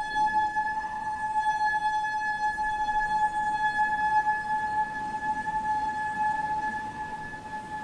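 Shofar sounding one long, steady, held note with a bright, reedy edge.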